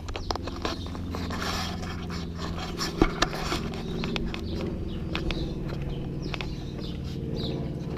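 Footsteps and scuffing on asphalt while walking a puppy on a rope leash, with scattered ticks and a sharp click about three seconds in. A steady low mechanical drone runs underneath, and a few short high chirps come near the end.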